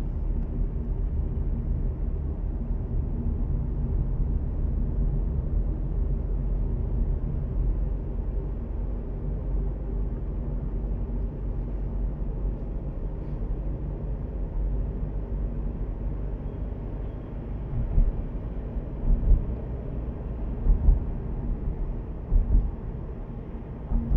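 Car driving at about 40 km/h, heard from inside the cabin: a steady low rumble of engine and tyres on the road, with several short, louder low thumps in the last few seconds.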